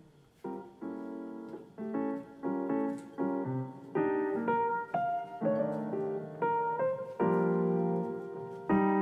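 Background music: a piano playing a gentle melody over chords, with struck notes that fade before the next ones.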